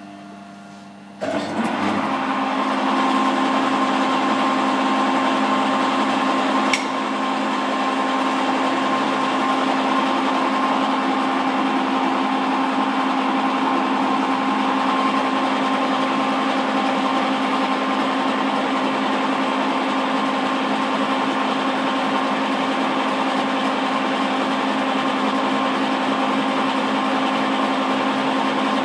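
Cincinnati 205 milling machine running, its cutter taking a facing cut across the top of half-inch plate. A steady, even whine starts abruptly about a second in, with a single click around seven seconds. The mill is not complaining: it handles the cut without strain.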